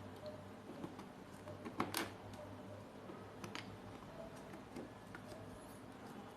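Scattered small clicks and taps of parts and tools being handled on a workbench, with a louder clatter about two seconds in, over a low steady hum.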